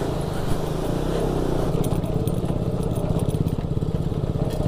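Motorcycle engine running at a steady speed, with a fast, even pulse.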